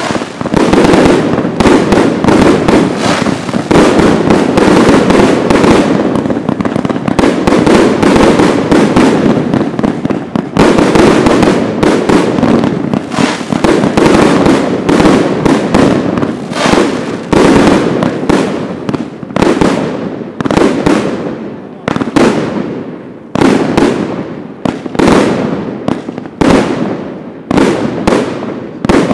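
Rubro Event Immortal Gold firework cake firing a rapid volley of shots and aerial bursts, packed almost without a break for the first half, then spacing out into separate bangs at a little over one a second.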